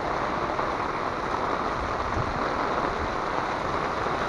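Heavy rain falling steadily, a dense even hiss without a break.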